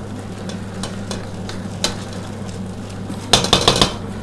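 Sataraš vegetables sizzling in a frying pan as they are stirred with a spoon, with a short burst of spoon scraping and clinking against the pan about three seconds in.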